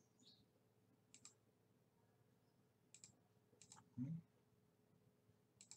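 Computer mouse button clicks, mostly in quick press-and-release pairs, a few times over several seconds. About four seconds in there is one brief, louder low sound.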